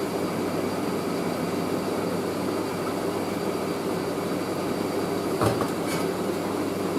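Hoover SIX AAA160 washing machine spinning its drum in a steady run, with two short knocks near the end.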